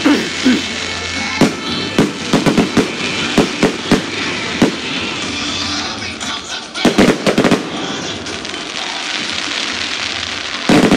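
Fireworks display: sharp bangs of shells bursting, irregularly spaced, with a rapid run of bangs about seven seconds in and another near the end.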